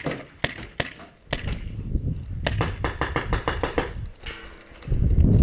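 Paintball markers firing: a few single sharp pops, then a fast string of shots at about nine a second, followed near the end by a low rumbling noise.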